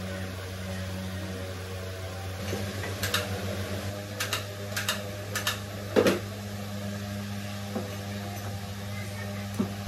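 Steady low appliance hum, with a few light clicks and knocks of glass jars being handled and set down on a table. The loudest knock comes about six seconds in.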